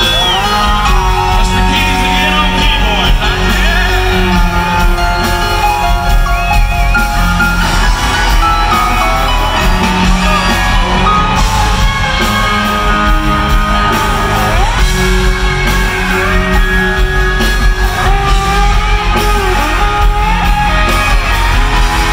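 Southern rock band playing loud live over a PA: electric guitars, drums and piano, with singing.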